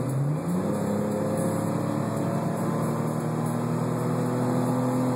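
Car engine heard from inside the cabin at full throttle from about 55 mph. The transmission kicks down about half a second in and the revs jump, then climb steadily for about five seconds. The revs drop at the end with an upshift.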